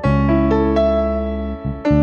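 Keyboard music with no singing: melody notes struck every quarter to half second over held bass chords, with the bass dropping out briefly and coming back in near the end.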